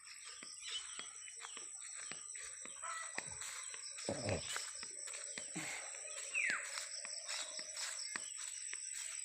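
Outdoor rural ambience with a steady high-pitched hum, scattered light clicks, and two short animal calls that fall in pitch, the lower and louder one about four seconds in and a higher one a little past six seconds.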